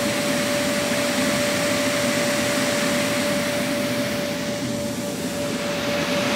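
Steady rushing, machine-like noise with a constant mid-pitched hum running under it, unchanging throughout.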